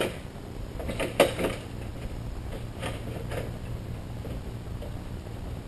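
A few light clicks and knocks as a plexiglass sheet is handled and lined up on a table saw's top, with the saw not running. There is a small cluster about a second in and two more near three seconds.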